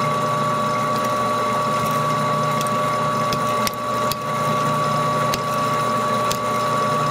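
Metal lathe running slowly, about 70 RPM, turning a pair of meshed 3D-printed plastic bevel gears: a steady motor whine with scattered sharp clicks while a strand of plastic filament is pushed into the gear teeth.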